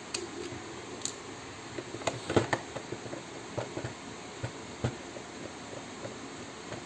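Scattered light clicks and knocks from a Nerf Stryfe blaster's plastic shell and parts being handled, the loudest about two and a half seconds in, over a steady background hiss.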